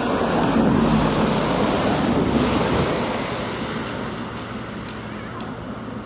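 Aircraft engine roar swelling to its loudest about a second in, then slowly fading as the aircraft passes.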